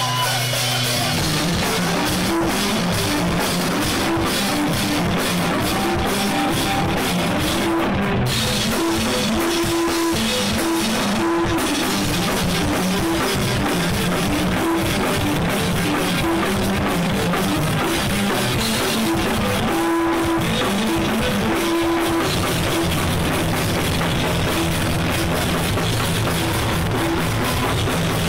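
Live rock band playing loud and steady, electric guitar over a pounding drum kit working through a repeating riff, heard from within the audience.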